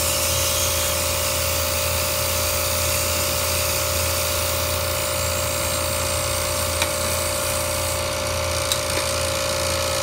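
An electric motor running steadily, with a constant low hum, a steady mid-pitched tone and a hiss over it; two faint clicks come in near the end.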